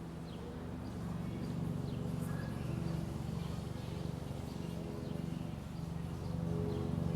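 City street ambience: a steady low hum with a few level tones in it, and short high bird chirps now and then.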